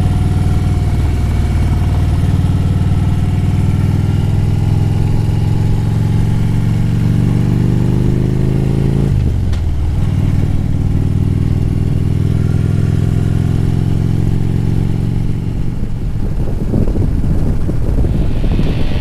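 Harley-Davidson Road Glide's V-twin engine running under way, its pitch climbing slowly and then dropping suddenly about nine seconds in, as at a gear change. A rougher rush of wind noise joins in near the end.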